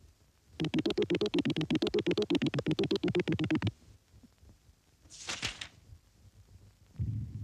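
Synthesizer sound effect: a rapid electronic pulsing, about ten pulses a second, for about three seconds. A short hissing whoosh follows, and a low rumble starts near the end.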